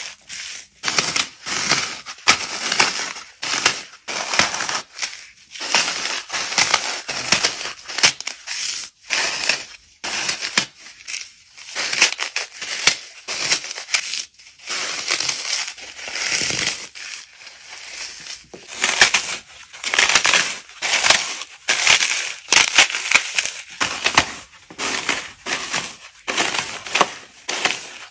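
Dry floral foam being crushed and crumbled by hand: crisp, powdery crunching and crackling, one squeeze after another with short pauses between.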